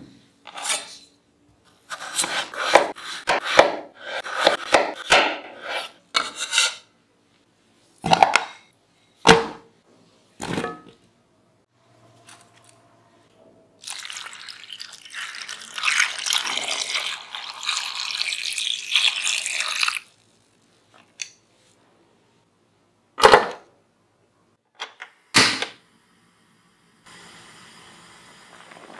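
Sharp knocks and clicks of potato pieces and utensils in the kitchen, then water poured from a jug onto potato chunks in a small pot for about six seconds. Two more single knocks follow, and a low steady hiss starts near the end as the pot heats.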